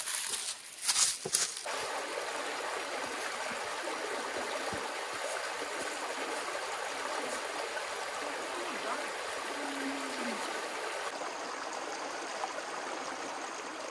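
A few crunching footsteps on rocks and dry leaves at the start, then a shallow creek running steadily over rocks: an even, constant trickling flow.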